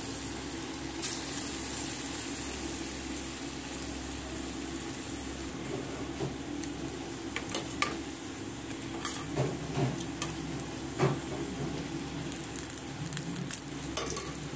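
Palm-fruit batter fritters deep-frying in hot oil in an iron kadhai, a steady sizzle, with a few sharp clinks of a metal wire skimmer against the pan.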